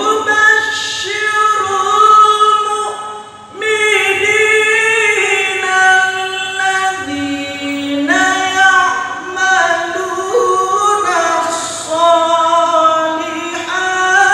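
Qur'an recitation in the melodic tilawah style by a high-voiced male qari: long sustained, ornamented phrases, with brief breaks for breath about three and a half and eight seconds in.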